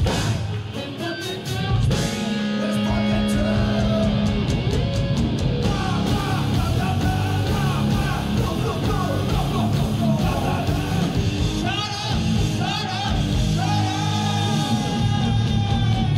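A rock band playing live through a club PA: electric guitars, bass guitar and drums with a sung vocal line. The full band comes in louder about two seconds in.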